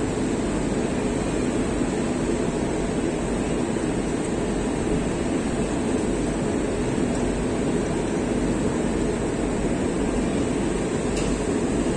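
Coaches of an express passenger train passing close by at speed: a steady rumble of wheels on the rails and coach running gear.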